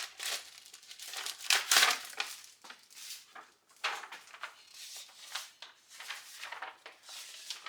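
Packaging being handled and crinkled, in irregular rustling bursts with the loudest just under two seconds in.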